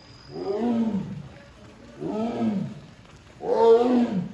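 Amur tiger calling three times, about a second and a half apart, each call under a second long and rising then falling in pitch, the third the loudest: the tiger is calling for its keeper because the door won't open by itself.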